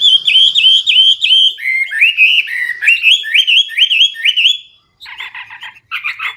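Chinese hwamei singing loudly: a fast run of clear, rising whistled notes, about four a second, that steps down to a lower series partway through. Near the end come short, harsher buzzy phrases, typical of the varied song of a bird in full voice.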